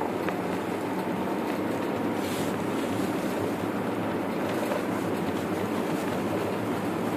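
Car driving on a snow-packed road: a steady rumble of tyres and engine.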